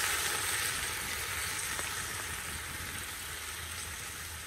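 Tawny port sizzling and bubbling in a hot cast-iron camp oven around browned lamb shanks: liquid just poured onto the hot iron, deglazing the pan. The hiss is loudest at first and slowly dies down.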